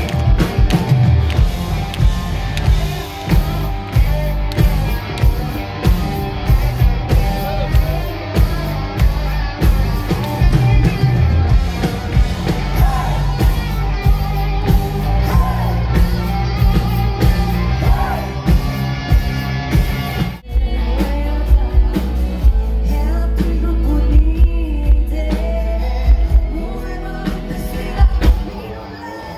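Live rock band playing loud on an outdoor stage, with a woman singing over electric guitars, bass and drums. About twenty seconds in the music breaks off abruptly and picks up in a different passage.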